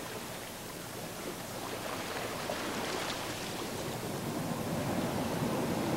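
Small lake waves washing onto a sandy shore around a wading angler, a steady rushing that grows louder toward the end.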